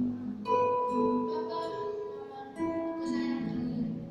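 Instrumental accompaniment with no singing: a few ringing chords, a new one struck about every two seconds and left to fade, like a song's closing bars.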